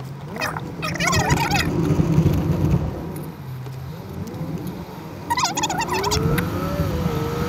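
Car engine and road noise heard from inside the moving car, a steady low hum. Over it, twice, comes a short burst of rapid warbling, wavering pitched sound, about a second in and again about five and a half seconds in, followed by a slow rising then falling tone.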